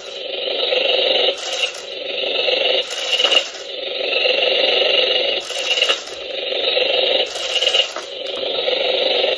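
Battery-powered Hungry Rattlesnake & Gold Digger toy snake running: its small motor whirs steadily as the head swings, with a short scraping rattle repeating about every second and a half.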